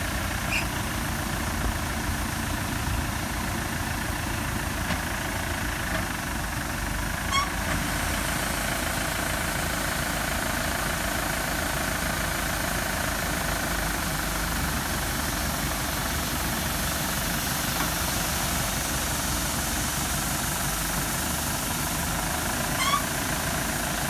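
Steady machinery: a diesel tractor engine idling while a grain dryer's auger spout pours paddy rice into a trailer, with a few faint clicks.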